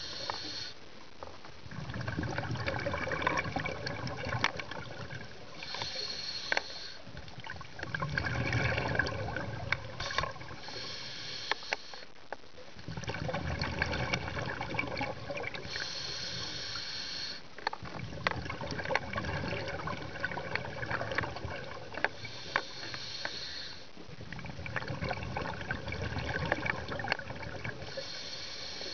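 Scuba diver breathing through a regulator underwater, heard through the camera housing. A short hiss on each inhalation alternates with a longer bubbling, clicking rumble of exhaled air, about once every five to six seconds.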